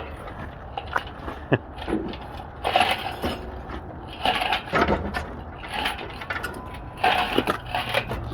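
Irregular metallic clinks, clanks and knocks of hand tools and engine parts being picked up and handled.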